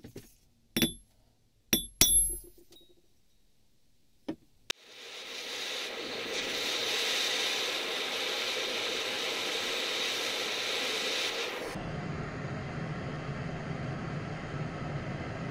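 Three ringing metal-on-metal blows as a steel stamp is struck into a knife blade of old plane-blade steel, then a couple of small clicks and a gas torch lighting and hissing steadily as it heats the blade red-hot. About twelve seconds in, the torch's hiss changes to a lower, rougher rumble.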